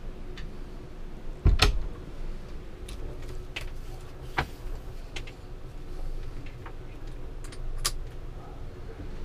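Handling knocks and clicks from a motorhome's wooden bathroom door and fabric isolating blind: one loud thump about a second and a half in, then a sharp click or two and lighter taps as the blind is worked.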